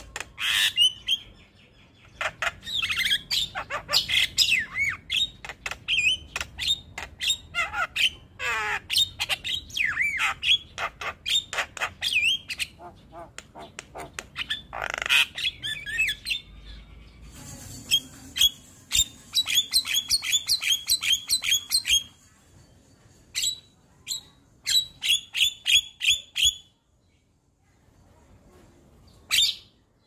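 Javan myna (jalak kebo) singing a varied song of squawks, chirps, gliding whistled notes and trills, packed with mimicked phrases. About two thirds of the way through it runs into a fast string of repeated notes, then sings only sparse notes and pauses briefly near the end.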